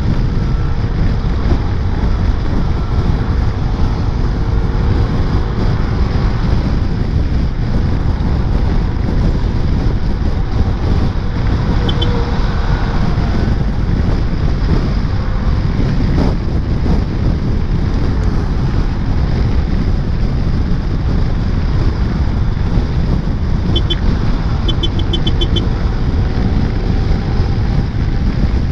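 Wind rushing over the rider's helmet microphone, with a motor scooter's engine running steadily under it while riding in traffic. A few short high beeps come about halfway through and again near the end.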